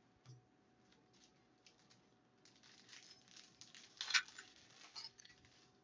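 Foil wrapper of a 2020 Bowman baseball card pack crinkling as it is torn open, the rustle building from about halfway through with a sharp, loudest crackle about four seconds in. A soft knock just after the start.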